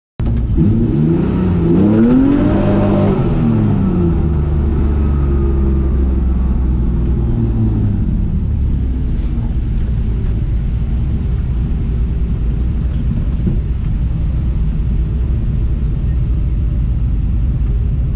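Race car engine heard from inside the cockpit, revved twice in the first few seconds, the pitch climbing and falling back, then settling into a steady idle with a low rumble while the car waits on the starting grid.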